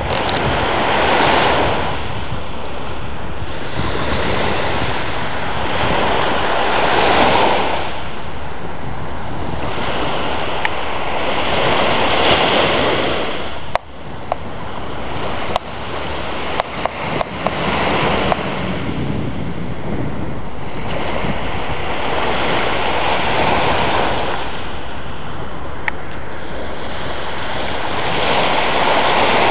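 Small Baltic Sea waves washing onto a sandy beach, the surf swelling and fading every few seconds, with steady wind rumbling on the microphone. About halfway through the sound drops suddenly, followed by a few sharp clicks.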